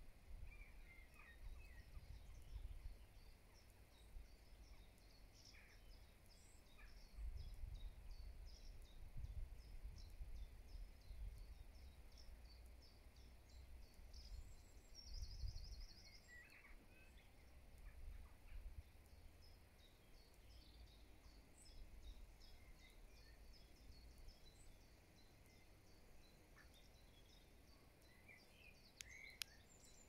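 Faint birdsong from small birds, with scattered chirps and a short trill about halfway through, over a low rumble of wind buffeting the microphone in gusts.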